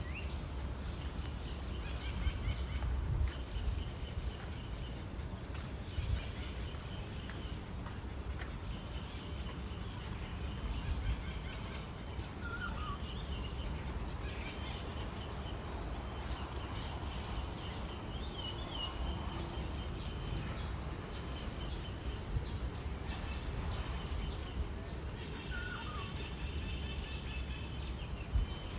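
Cicada chorus: a loud, unbroken, high-pitched shrill drone, with a few faint bird chirps now and then over it.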